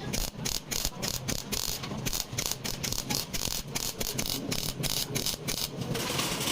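A rapid, uneven series of sharp clicks or light taps, several a second, thinning out about six seconds in.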